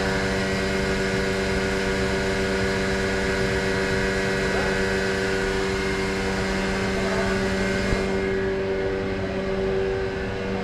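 A 2006 Haas VR-9 5-axis vertical machining center running under power: a steady mechanical hum with several steady tones. A high hiss over it drops away about eight seconds in.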